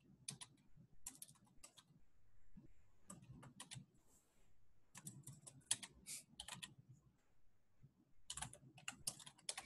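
Faint computer keyboard typing: short runs of keystrokes separated by pauses, as a line of code is typed.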